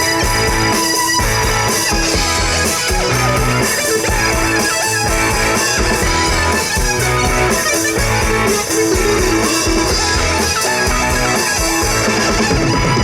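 Live rock band playing an instrumental passage, a guitar leading over bass and drums, with no singing.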